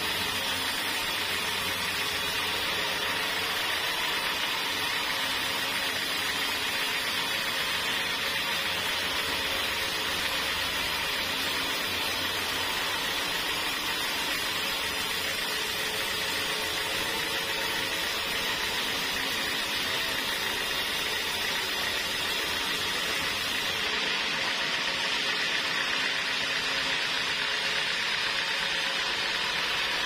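Homemade band sawmill running, its blade sawing lengthwise through a jackfruit log with a steady, even hiss and whine. The low undertone thins out near the end.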